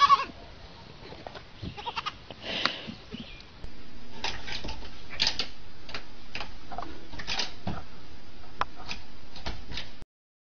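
A short animal call at the very start, then scattered clicks, and from about a third of the way in a steady hiss with many sharp clicks and knocks that cuts off suddenly near the end.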